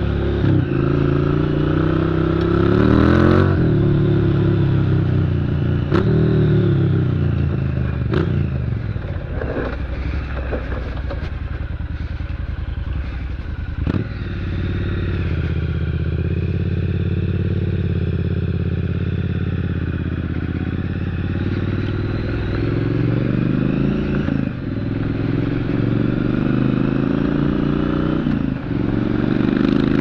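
Triumph Street Scrambler's parallel-twin engine exhausting through baffled Zard straight-through slip-on pipes on stock headers, accelerating through the gears: pitch rises in several pulls, each broken by a drop at an upshift, with a steadier cruising stretch in the middle.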